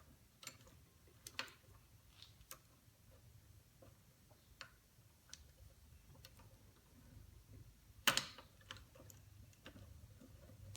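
Faint, scattered metal clicks and taps of a gear puller being fitted and adjusted on a stuck collar on the drill press shaft, with a louder scraping clatter about eight seconds in.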